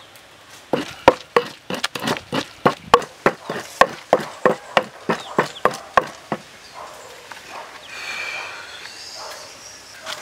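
Wooden pestle pounding ingredients for a chili sauce in a wooden mortar: about twenty dull, evenly paced strokes, roughly three a second. They start just under a second in and stop about six seconds in.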